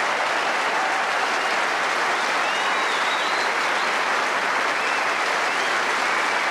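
Theatre audience applauding steadily, with a few faint high calls from the crowd heard over it around the middle.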